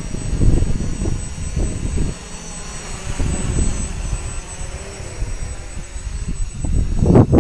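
Quadcopter's electric motors and propellers whirring steadily as it hovers and flies close by, with irregular low buffeting on the microphone, strongest near the end.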